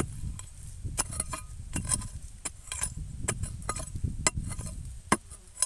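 A steel-bladed digging tool chopping into dry soil and roots at the base of a shrub: a string of short, sharp strikes, about two or three a second, some with a clink.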